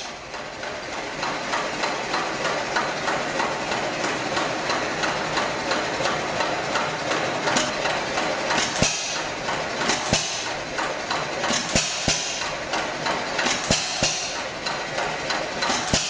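Hit-and-miss stationary engine running with a fast, even mechanical clatter. From about halfway through, a sharper bang stands out every one and a half to two seconds: the engine firing between coasting strokes.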